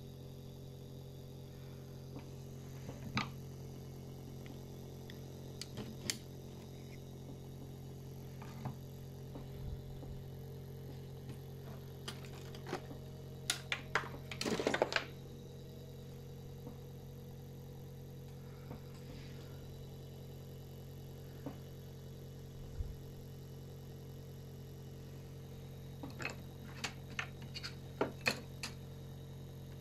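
Steady low electrical hum from a bench motor and power-supply setup, with scattered light clicks and taps. About halfway through comes a short burst of clicking and rustling handling noise, and a few more clicks near the end.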